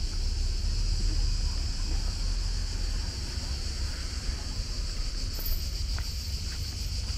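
Cicadas buzzing in a steady, unbroken chorus over a low rumble of wind on the microphone.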